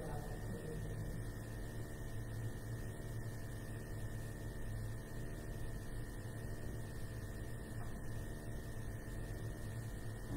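Steady electrical hum, with a thin, steady high tone above it.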